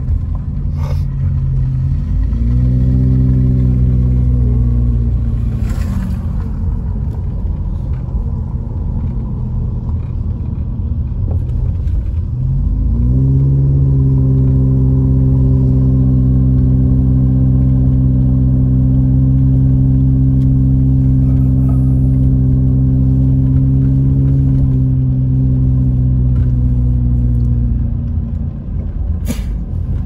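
Car engine heard from inside the cabin, pulling under load up a steep street: its pitch rises about two seconds in and eases off, then rises again near the halfway point and holds steady for about fifteen seconds before dropping away near the end, over a constant low road rumble.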